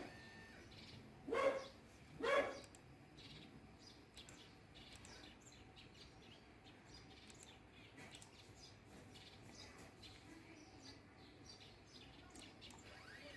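A dog barking twice, about a second and a half in, with faint bird chirps in the background.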